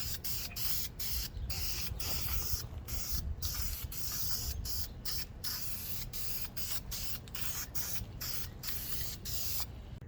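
Aerosol can of VHT flame-proof high-temperature flat black paint hissing in short sprays, about two a second, stopping just before the end.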